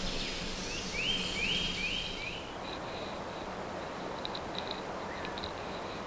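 A small songbird gives three short rising notes about a second in, over a steady outdoor background hiss. A few faint high ticks follow a couple of seconds later.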